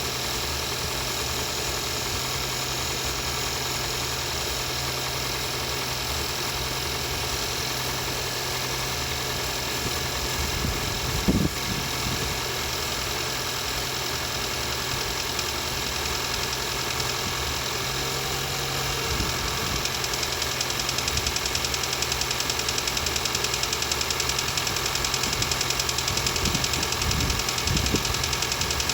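Car engine running with a fast, regular knock, the knocking the owner is complaining about. A single loud knock comes about eleven seconds in, and from about two-thirds of the way through the engine gets a little louder with a quick, even pulsing.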